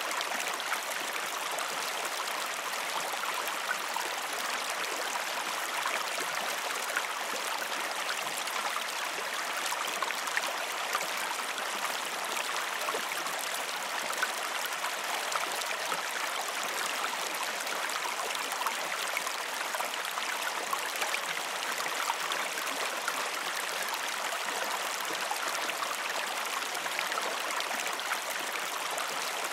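Gentle creek water flowing in a steady babble, with many small splashes and trickles.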